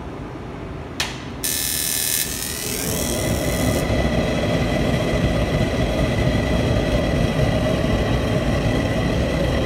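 A commercial gas range burner being lit. A sharp click about a second in is followed by a high hiss of gas, then a steady roar of the flame from about three seconds in.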